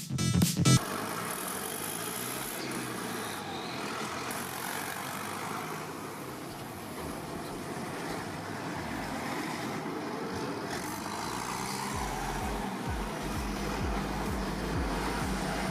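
Farm tractor engine running steadily, with a deeper rumble coming in about three quarters of the way through as it gets closer or works harder.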